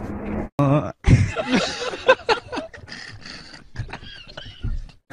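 A young man laughing hard in repeated broken fits, starting about a second in, after a brief scuffle of street noise.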